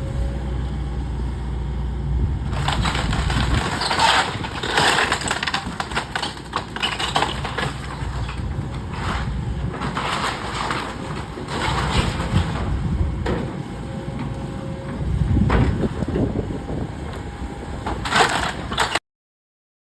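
Wood crunching and cracking in repeated irregular bursts as a building is torn down, over a low engine rumble; the sound cuts off suddenly near the end.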